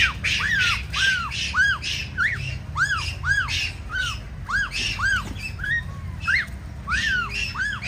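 A bird squawking over and over, about two calls a second, each a short note that rises and falls.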